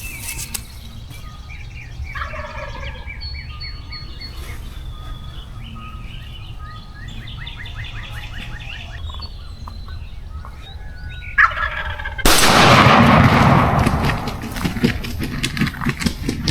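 Wild turkey gobbling several times, then a single loud shotgun shot about eleven seconds in, followed by a couple of seconds of loud rustling noise.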